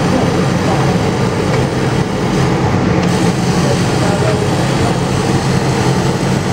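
CO2 laser cutting machine running, its fans and air giving a steady, even low hum with a rush of air.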